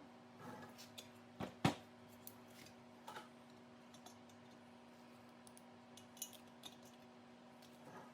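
Scattered small clicks and taps of hand tools and small metal parts being handled, the loudest a sharp knock a little under two seconds in, over a steady low hum.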